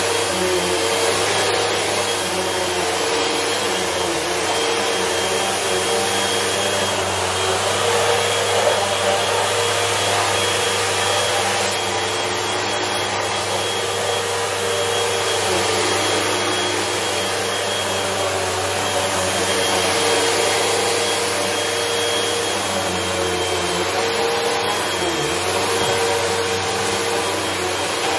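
Upright bagless vacuum cleaner running steadily on a rug, a constant motor drone with a thin high whine, its pitch wavering slightly as it is pushed back and forth.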